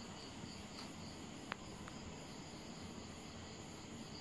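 Faint crickets chirping in a steady, regular pulse over a low background hum, with a light click about a second and a half in and a fainter one just after.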